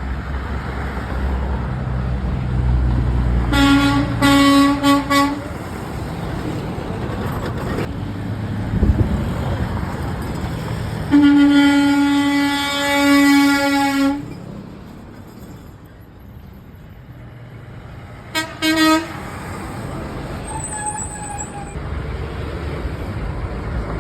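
Truck air horns honking over passing traffic: a few short blasts about four seconds in, one long blast of about three seconds near the middle, and a quick double toot near the end. Truck engines and road rumble run underneath.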